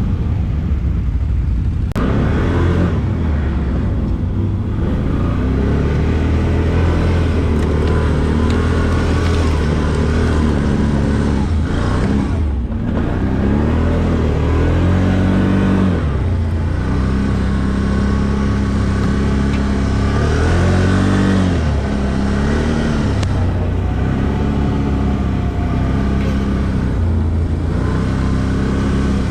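ATV engine running under load, its pitch repeatedly rising and falling as the throttle is opened and eased off.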